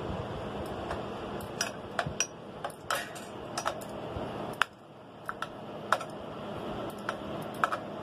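Harbor Breeze Edenton ceiling fan spinning with a steady whoosh while it is rocked into a wobble. Its housing and light kit give irregular sharp clinks and rattles, about fifteen to twenty in all.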